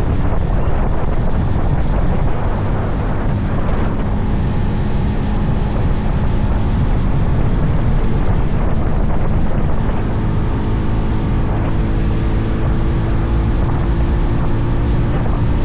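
Motorcycle running at road speed, its engine note held steady under heavy wind noise on the microphone; the engine tone comes through a little more clearly in the second half.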